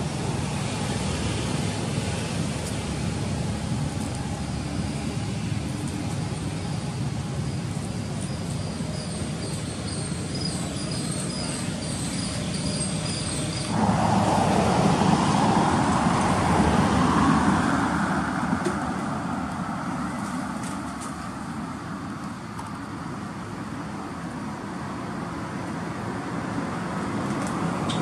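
Steady outdoor background noise with road traffic. About halfway through it cuts abruptly to a louder traffic noise that swells and then slowly fades.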